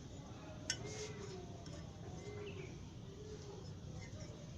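Eurasian tree sparrows and other birds calling faintly over a steady background noise, with one sharp click just under a second in.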